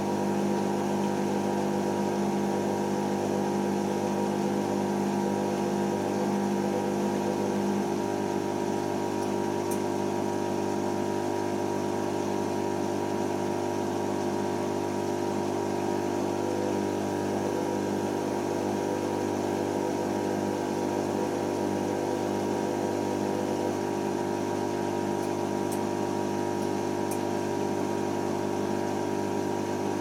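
Hoover Optima OPH714D washing machine's drum motor tumbling the wet load at low speed while it tries to balance it before the 1400 rpm final spin. A steady motor hum whose tone shifts slightly about eight seconds in.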